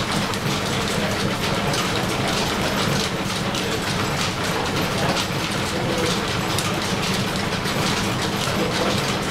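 1884 Brown & Sharpe milling machine, belt-driven from steam power, running with a steady dense mechanical clatter of fine rapid clicks while a gear is cut on its dividing head.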